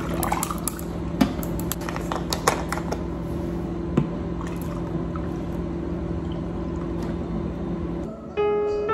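Liquid poured over ice cubes in a glass jar, the ice clicking and cracking, then bottled cold brew coffee poured in with a steady pouring sound; a faint steady hum sits underneath. Piano music comes in near the end.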